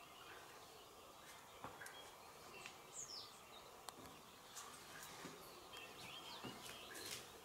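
Near silence with faint bird chirps, one short falling chirp about three seconds in and a few more near the end, and a handful of light scuffs and taps from someone clambering down steep rock.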